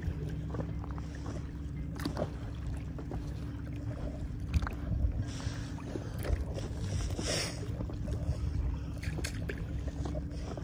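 Kayak paddle strokes, each blade dipping into the water with a short splash every two seconds or so, over a steady low hum.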